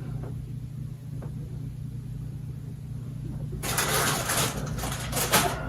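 Steady low hum, then about three and a half seconds in, loud crackling and rustling of Taco Bell paper food wrappers being handled.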